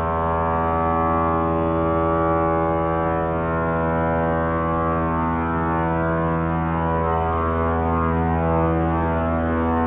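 Pipe organ holding a full, sustained chord, deep and steady throughout, with softer notes shifting above it in the second half.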